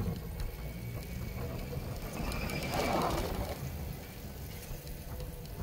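Wind rumbling on a phone microphone carried on a moving e-bike, with a rushing noise that swells and fades about three seconds in.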